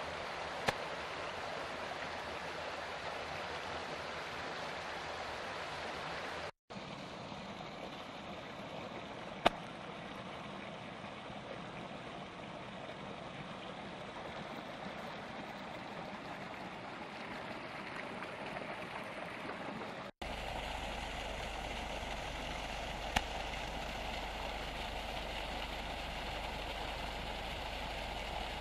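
Steady rush of running water, broken by two abrupt cuts, with three short sharp clicks; a low steady hum joins after the second cut.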